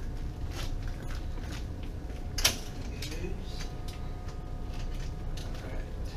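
Hospital bed side rail being unlatched and lowered: a creaking, clicking mechanism with one sharp clack about two and a half seconds in.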